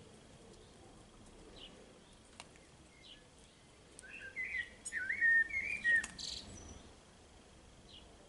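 Birds chirping, with a louder warbling phrase of quick high notes about four seconds in and a few short chirps around it.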